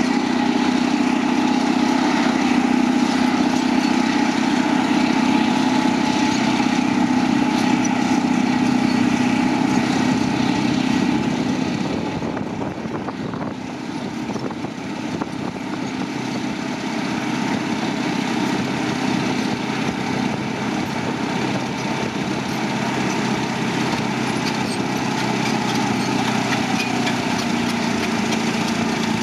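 Caterpillar D9N bulldozer's diesel engine running steadily; the sound eases for a few seconds about twelve seconds in, then builds back up.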